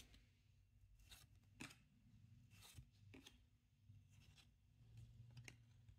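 Near silence, broken by a few faint soft clicks and rustles of trading cards being handled and slid through a stack, a small cluster of them near the end.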